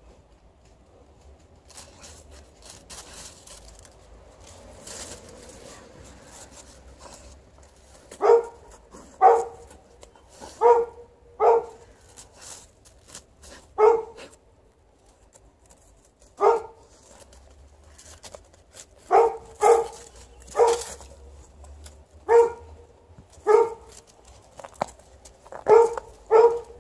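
Faint scratching and rustling, then from about eight seconds in a dog barking: about fifteen short, loud single barks at uneven intervals, some in quick pairs.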